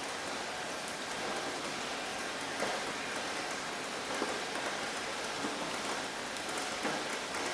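Steady rain falling on a hard surface, an even hiss with scattered single drops ticking through it.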